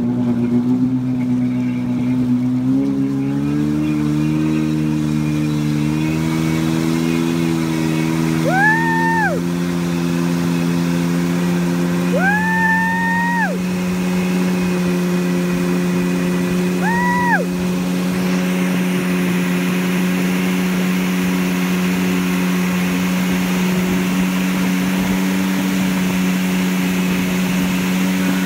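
Tow boat's engine speeding up in steps over a few seconds as it pulls a water-skier out of the water, then running steadily at towing speed, with the rush of water and wake growing. Four short high tones sound over the engine a few seconds apart.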